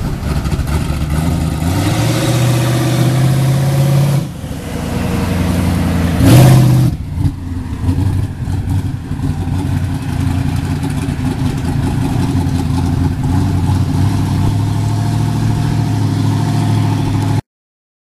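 Twin-turbo 5.3-litre V8 in a 1989 Chevrolet pickup accelerating with its engine note rising, easing off about four seconds in, then passing loudest around six seconds in. It keeps running steadily afterwards, and the sound cuts off abruptly near the end.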